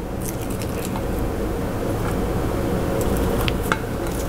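A steady low rumble, slowly growing louder, under the quiet work of ricotta cheese mixture being spooned onto lasagna noodles in a baking dish, with a couple of light clicks near the end.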